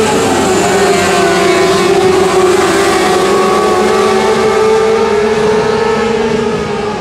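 Winged sprint car engines running at low, steady revs, the pitch sagging slightly and then picking back up near the end.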